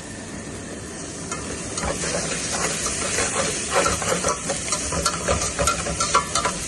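Onion, garlic and grated carrot frying in oil in a pan, sizzling louder from about a second in, while a spoon stirs and scrapes the pan in quick irregular strokes.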